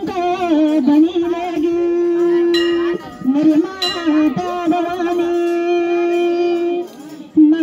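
Women singing a traditional Garhwali payri folk song in long, drawn-out held notes, with short breaks between phrases.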